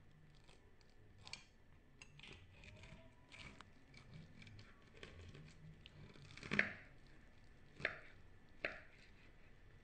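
Table knife and fork cutting through a crispy panko-breaded fried fish fillet: faint crackling crunches of the crust, with three sharper clicks near the end.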